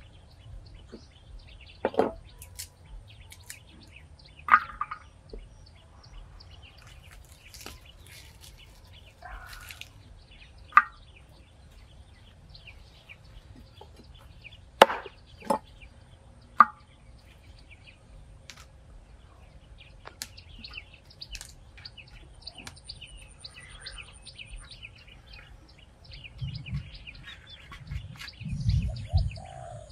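Scattered single sharp knocks of a knife chopping on a wooden board, a few seconds apart. Birds chirp faintly throughout, and a few dull low thumps come near the end.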